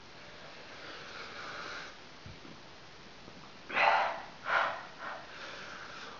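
A man breathing hard through the burn of a red habanero pepper: a long hissing breath about a second in, then three sharp breaths a little over half a second apart, trailing into another soft hiss near the end.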